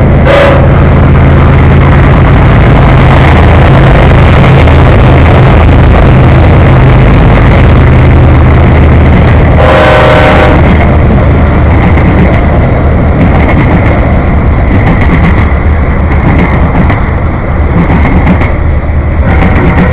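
Freight train passing close, loud and steady, its GE ES44AC and ES40DC diesel locomotives working hard with a low drone that fades after about eight seconds. About ten seconds in there is a short blast on the K5HLL multi-chime air horn, and another horn sounding begins near the end.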